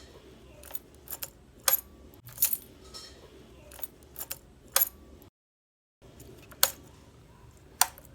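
Small metal objects clinking and jingling: about eight sharp metallic clicks a second or so apart, each with a short high ring. The sound cuts out completely for about half a second after five seconds.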